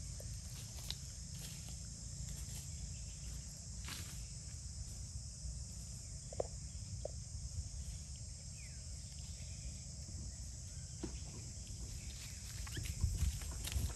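Outdoor ambience of a steady high insect drone, with a low wind rumble underneath and a few soft clicks and rustles in dry leaves.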